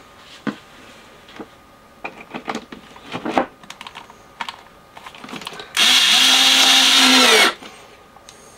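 A few small clicks and knocks of handling, then a cordless drill-driver runs loudly and steadily for about a second and a half near the end, driving in a screw, and its motor pitch dips as it stops.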